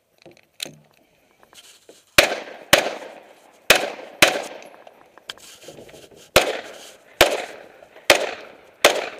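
Semi-automatic pistol fired eight times in pairs, the two shots of each pair well under a second apart. Each shot has a short echoing tail.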